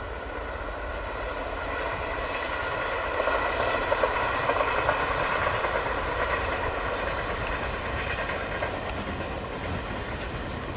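Diesel locomotive hauling a passenger train past at a distance: a steady pitched engine drone over a low rumble, with a light clatter of wheels on rail joints. It swells to a peak about four seconds in, then slowly fades.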